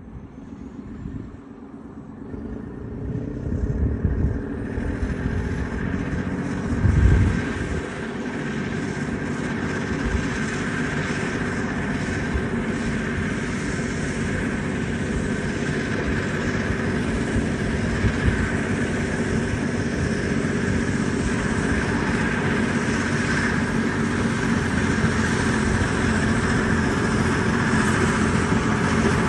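Caterpillar D6T LGP crawler dozer's diesel engine running as the machine drives toward the listener, growing louder over the first few seconds and then holding steady. A heavy low thump comes about seven seconds in.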